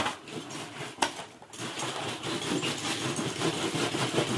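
Hand-lever groundnut shelling machine being worked: the toothed underside of the handle grinds the pods against a mesh screen, cracking the shells with a continuous crackling rasp. Two sharp knocks come in the first second before the rasping begins about a second and a half in.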